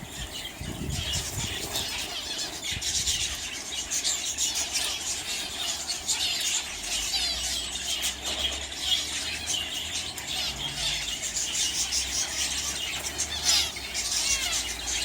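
A flock of small aviary finches chirping and calling together: a dense, unbroken chatter of many short, high, squeaky calls.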